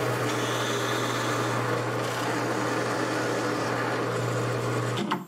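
Drill press running and boring a long bit down through a wooden clamp frame: a steady motor hum with an even cutting hiss, which stops abruptly about five seconds in.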